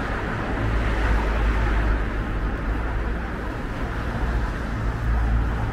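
Steady traffic noise of cars passing on a town street, swelling a little twice.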